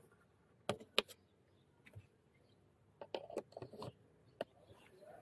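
Plastic clicks and knocks as a 12-volt DC plug is handled and pushed into a car's dashboard power socket: two sharp clicks about a second in, then a cluster of smaller clicks around three to four seconds.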